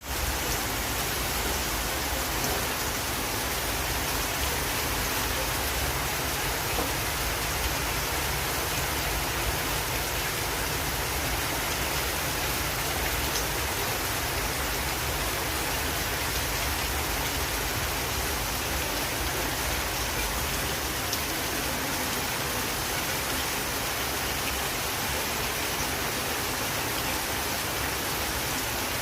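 Rain falling steadily, an even hiss of drops with no let-up.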